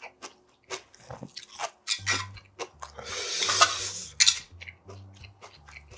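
Close-miked chewing of instant ramen noodles: quick wet clicks and smacks, then a long noodle slurp about three seconds in.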